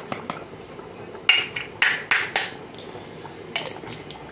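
A small spice jar being shaken and handled over a cooking pot: a few faint clicks, then a cluster of short, sharp, rattly strokes a little after a second in and two more near the end, over a steady low hiss.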